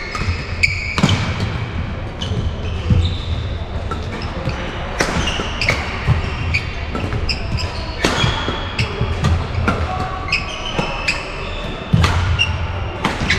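Badminton rally: rackets striking the shuttlecock in sharp cracks every second or so, with court shoes squeaking briefly on the court mat and footsteps thudding, echoing in a large sports hall.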